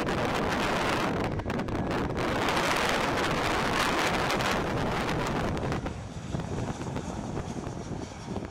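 Jet engines of a Boeing 737-700 on landing approach passing low overhead: a steady rushing roar, loudest around the middle. The microphone picks up wind buffeting. The sound drops off sharply about six seconds in.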